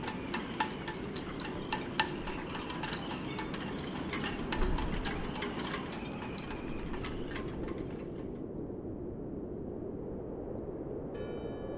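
Rapid light clinking over a steady low rushing noise; the clinking stops about eight seconds in. A bell starts ringing near the end.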